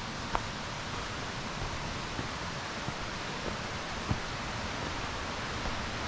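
Steady rushing of falling water from a waterfall, an even hiss with no change, with a couple of soft footsteps on the dirt trail about half a second and four seconds in.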